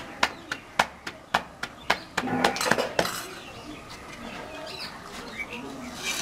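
Paratha dough being slapped and patted flat between the palms, a quick even run of about three or four pats a second that stops about three seconds in. Birds chirp in the quieter stretch after.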